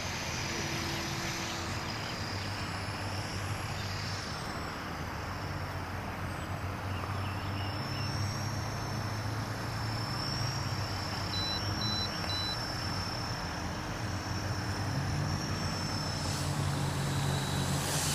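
Radio-controlled model airplane in flight: a thin high whine from its motor and propeller that rises and falls with the throttle over a steady background hum. It grows louder over the last couple of seconds as the plane comes in and touches down on the grass nearby. Three short high beeps sound about halfway through.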